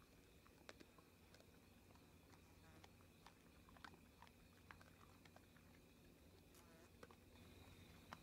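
Whitetail deer feeding on corn: faint, irregular crunching clicks, a few a second, heard far off.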